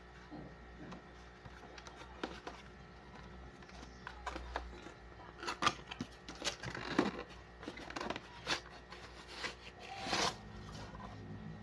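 Toy packaging being handled and opened by hand: irregular crinkles, rustles and small clicks that grow busier and louder in the second half.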